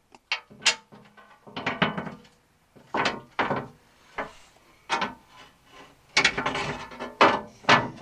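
Steel skid plate and hand tools clanking, rubbing and scraping as the plate is worked into place under a Jeep Wrangler, in a string of short, irregular bursts with brief gaps.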